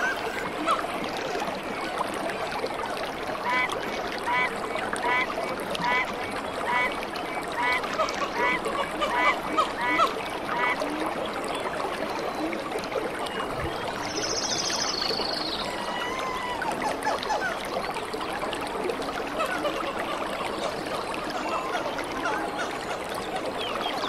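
Stream water running steadily, with an animal call repeated about ten times in an even series, roughly one and a half calls a second, and one brief high chirp about halfway through.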